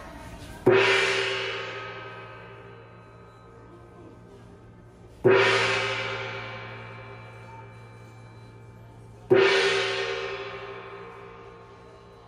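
Ship's departure gong (dora) struck three times, about four seconds apart, each stroke ringing on and slowly fading: the signal that the ferry sails in fifteen minutes.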